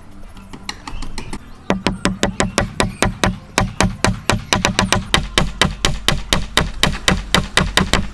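Rapid, evenly spaced wooden knocks, about five a second, starting a little under two seconds in, over a steady low hum.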